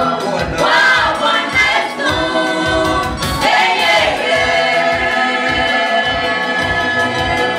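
Gospel choir singing in Swahili, a male lead voice with the group joining in, over a steady low beat of about two thumps a second.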